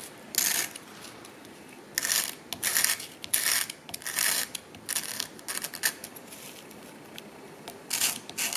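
Tips of a wooden fork's tines scraped on sandpaper laid flat on a hard table, in short scratchy strokes with a pause after the first stroke and another near the end. The longer tine is being ground down to the length of a chipped, shorter one.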